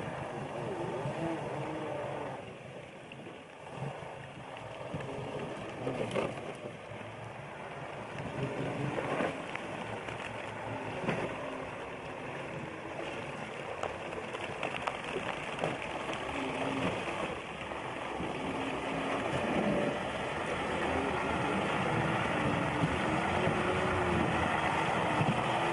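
Heavy truck engine working hard as the truck churns through slush and icy water, its pitch rising and falling with the throttle. It gets louder in the second half as the truck comes closer.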